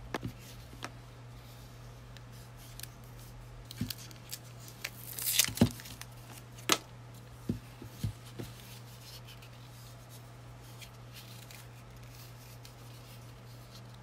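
Scattered light plastic clicks and a brief rustle as a white USB charging cable and the plastic body of a bendable neckband fan are handled, with one sharper click about seven seconds in. A faint low steady hum lies underneath.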